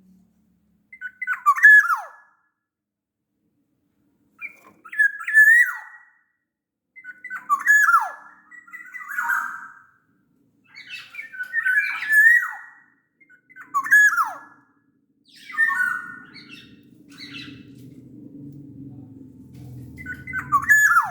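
Black-naped oriole (kepodang) singing, repeating a short whistled phrase that ends in a falling note, about every two seconds. A low steady hum comes in under the song for the last few seconds.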